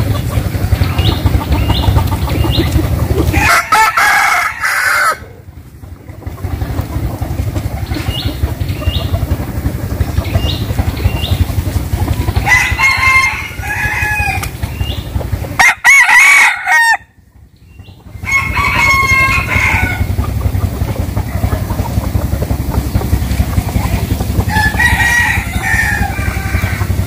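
Roosters crowing about five times, one after another, over a steady low rumble. The sound almost drops out briefly twice.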